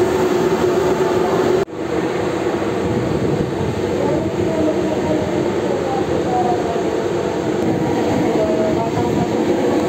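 Passenger car ferry's engines running underway, a steady loud rumbling drone through the vehicle deck. The sound briefly drops out about a second and a half in.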